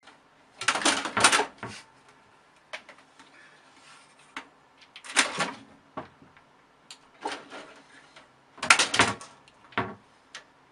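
Bunches of short scrabbling knocks and rattles: a cat clawing and pawing at the plastic case of a computer tower. The loudest bunches come about a second in, about five seconds in and near nine seconds in.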